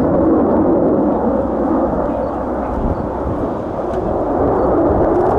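Jet noise from a Swiss Air Force F/A-18C Hornet's twin turbofan engines: a loud, steady roar that eases slightly midway and builds again near the end.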